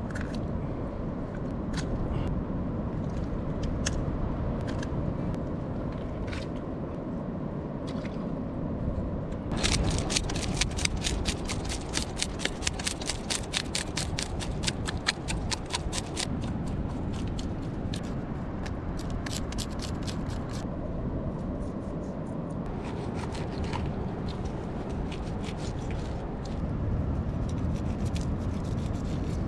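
A knife scraping and cutting a fish laid on a coral rock: scattered scrapes and clicks, then a run of quick rasping strokes from about ten to sixteen seconds in, over a steady rush of wind and surf.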